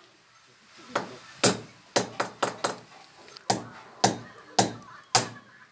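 Hammer striking the frame of a steel window grill: about eleven sharp metallic blows, a quick run of five around the middle, then four more spaced about half a second apart.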